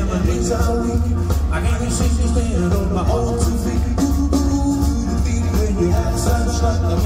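Live swing and rock 'n' roll band playing, with a strong bass line and a steady drum beat.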